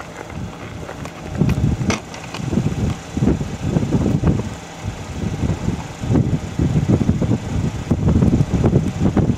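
Wind buffeting the microphone: an irregular, gusty low rumble that swells and drops several times a second.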